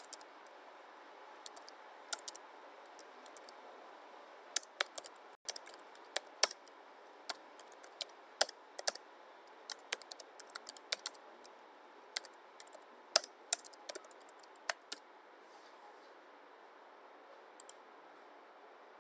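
Typing on a computer keyboard: an irregular clatter of keystrokes that stops about fifteen seconds in, followed by two lone clicks near the end.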